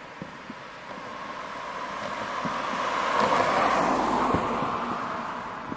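Distant fireworks display: a rushing noise swells to a peak about halfway through and fades away, with a few faint thuds from the shells.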